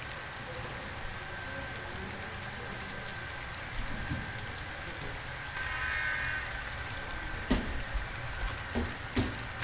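Model railway coal hopper cars rolling over the track: a steady, fine clatter of small wheels on rail with a low hum, a brief squeal about six seconds in, and a couple of sharp knocks near the end.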